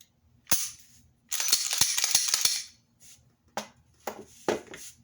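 Sharp metallic clicks and a clattering run of rattles lasting just over a second, from a Glock 45 pistol and its parts being handled, followed by three more separate clicks.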